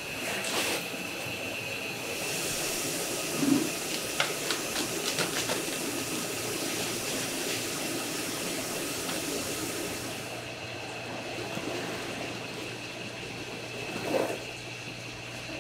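Soybeans and water rushing into a stainless-steel soaking tank as a woven sack of dry soybeans is slit open and emptied. A steady hiss drops away about ten seconds in, with two dull thumps as the heavy sack is handled. Behind it runs a steady high machine whine.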